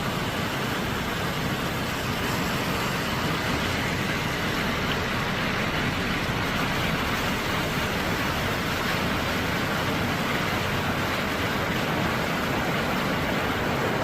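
Flash-flood water rushing steadily down a wadi in full flow.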